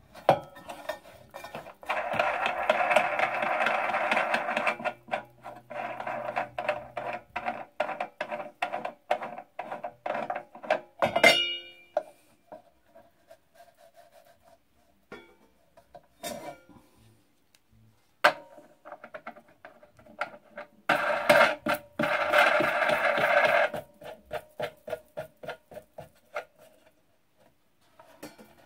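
Crash cymbal rubbed against the spinning disc of a homemade cymbal lathe to smooth its cut edge. The cymbal rings loudly with a fast, even ticking in two long stretches, one about two seconds in and one near the end. Between them come sparser ticks and single knocks as it is taken off the disc and handled.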